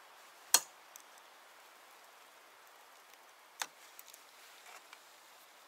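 Two sharp clicks about three seconds apart, the first the louder, with a few faint ticks between, made by hands working small tools and electrical connectors on snow-plow wiring.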